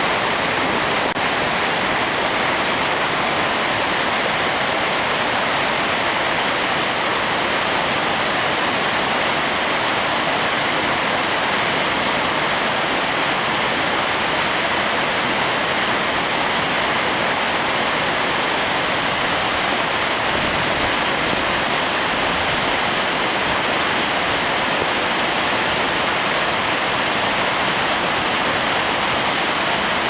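Large waterfall plunging into a rocky river with white-water rapids below: a steady, unbroken rush of falling and churning water.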